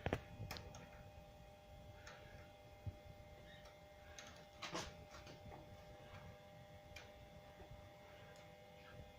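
Near silence with a few faint, irregular clicks and ticks from hands working on a bicycle brake adjuster.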